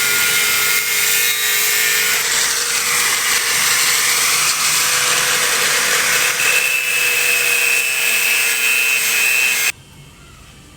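Power tool cutting on a building site: a loud, harsh hiss with a steady whine, cutting off abruptly near the end.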